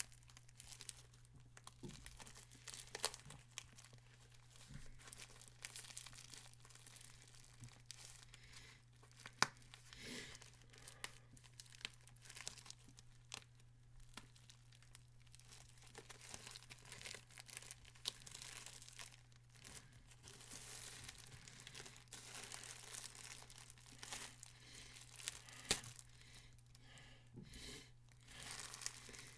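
A package being torn open and handled: continual rustling, crinkling and tearing with many sharp clicks, over a steady low hum.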